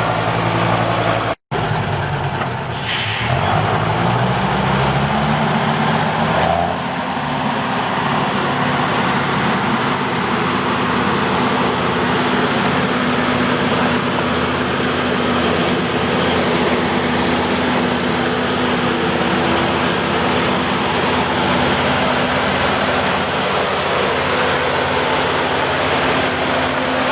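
Berliet military truck's engine running loud, with a short air hiss about three seconds in. The engine then speeds up over a few seconds and settles into a steady, even rumble.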